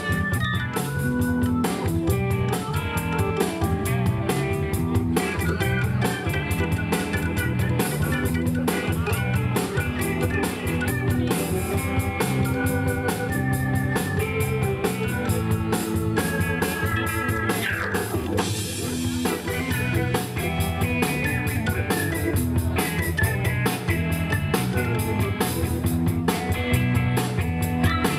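Live rock band playing an instrumental passage without singing: amplified electric guitar, keyboards and drum kit over a steady beat, with a brief sliding pitch about two-thirds of the way through.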